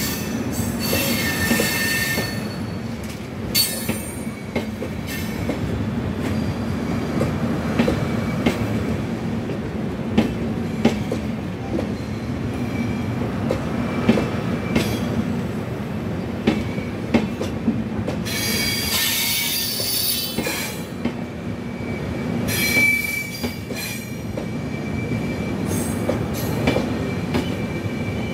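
Express train's passenger coaches rolling past on the track: a steady rumble with wheels clacking over rail joints and bursts of high-pitched wheel squeal, about a second in and again around two-thirds of the way through, as the train arrives at the station.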